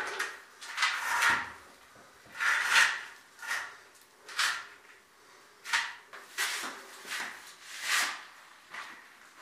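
Repeated short, rough scraping strokes, roughly one a second, of a hand tool worked over cement at the foot of a wall.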